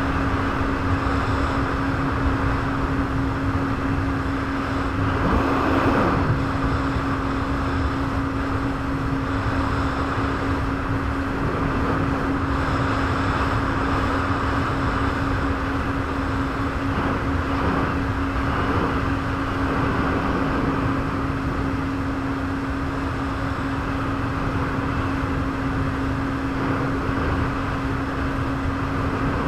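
Jet ski running at a steady speed: a constant engine drone over a rushing hiss of water and air, with a short falling sweep about five seconds in.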